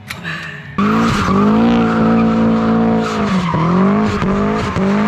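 A car engine running at high revs cuts in suddenly about a second in. Its pitch holds steady, then drops and recovers several times.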